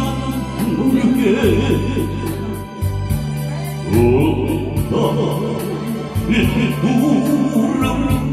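A man sings into a hand-held microphone over amplified keyboard backing music that has bass notes, an organ-like sound and a steady ticking beat.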